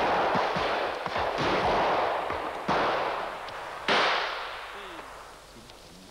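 Shotgun shots fired at driven pheasants overhead, three sharp reports roughly a second and a quarter apart, each trailing off in a long rolling echo. The tail of an earlier shot is still fading at the start.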